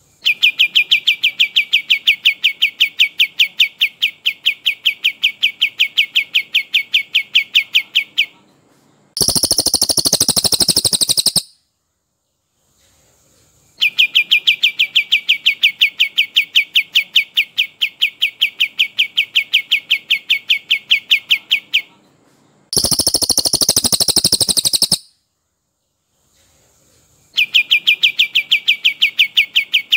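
Looped birdsong training recording: a brown cililin's long rolled trill of rapid, even, high notes, about eight a second, each run lasting about eight seconds. The runs alternate with shorter, denser bursts of song from a kapas tembak, and the pair repeats in the same cycle.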